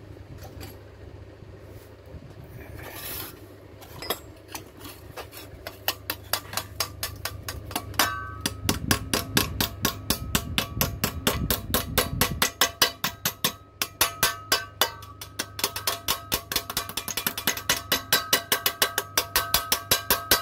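Hammer striking the edge of a sheet-metal bracket clamped in a bench vise, rounding the edge over: quick, evenly spaced blows several a second that start about four seconds in and carry a ringing metallic note, with a short lull in the middle.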